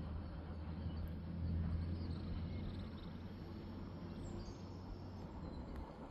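Faint outdoor ambience: a low steady hum with a few faint high chirps, the hum dropping away near the end.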